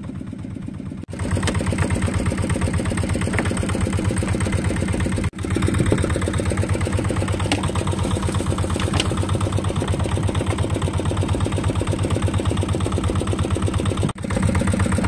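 Fishing boat's engine running steadily with a fast, even chug, while the net is hauled aboard. It is fainter for about the first second, then louder.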